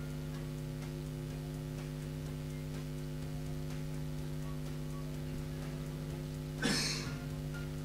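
Steady electrical mains hum in the sound system, with a short burst of noise near the end that is the loudest thing heard.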